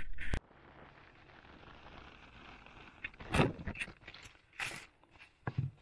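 Handling noise from a small plastic replacement door handle and its packaging: a few short scrapes, rustles and light knocks against a faint steady background.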